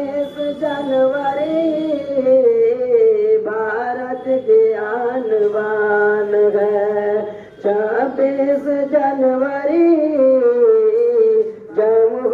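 Voices singing a song in long, drawn-out held notes, pausing briefly about seven and a half seconds in and again near the end.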